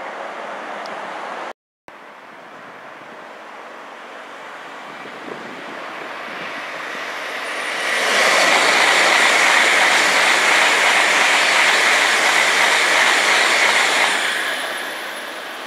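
A Tokaido Shinkansen 700-series bullet train passing at high speed. Its rushing noise swells over several seconds, stays loud and steady for about six seconds as the train goes by, then fades away.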